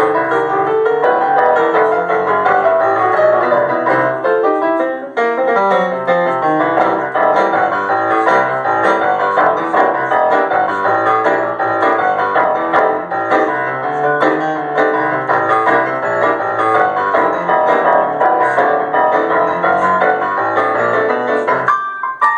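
Boogie-woogie piano played live: a busy moving bass line under dense right-hand figures, continuous until a brief break right at the end.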